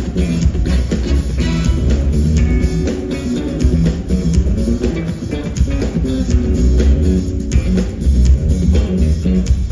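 Live funk band playing an instrumental: electric guitar over bass guitar and drum kit, heavy in the low end.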